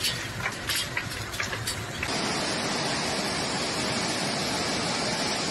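Irregular light ticks and patter over a noisy background, then an abrupt change to the steady rush of water pouring out of a dam's spillway in a continuous torrent.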